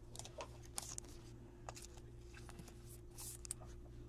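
Faint rustling and light clicks of a trading card being handled and slid into a clear plastic sleeve, over a steady low hum.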